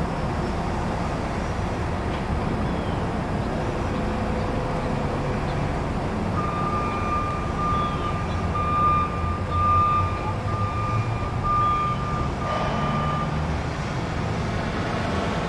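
Truck reversing alarm beeping at an even pace, about one beep a second, over the steady low rumble of the truck's engine. The beeps start about six seconds in and stop after about seven beeps.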